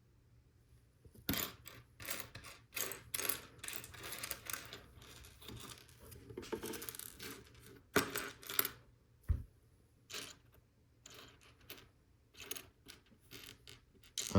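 LEGO Technic plastic pieces being handled and fitted together: a string of irregular sharp clicks and clatters, with a short stretch of rustling and rattling about halfway through.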